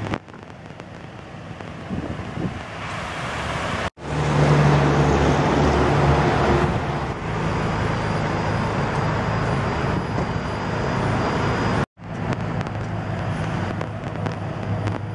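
Steady hum of motor-vehicle and road traffic noise, louder for a few seconds after a sudden break about four seconds in and cut off sharply again near twelve seconds.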